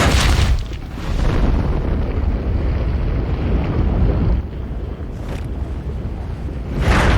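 Sci-fi sound effect of a robot ship moving over desert sand: a sudden loud blast, then a heavy, noisy rumble with a rushing hiss as sand is kicked up. It eases slightly a few times and surges again near the end.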